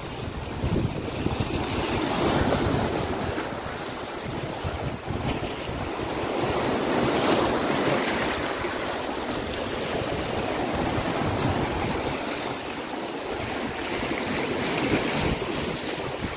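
Sea surf washing in and out among shoreline boulders, swelling and easing every few seconds, with wind buffeting the microphone.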